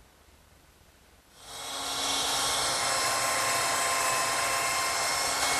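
Electric belt sander starting about a second and a half in and running steadily on oak, a high-pitched motor whine.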